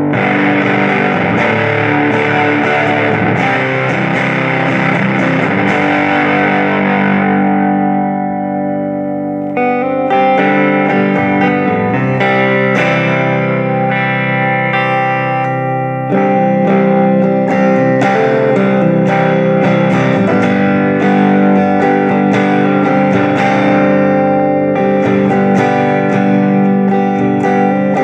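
Electric guitar, a Squier Stratocaster played through a Fender Champion 20 amp: gritty, full-sounding chords for the first seven seconds or so, then thinning out into separate notes ringing out.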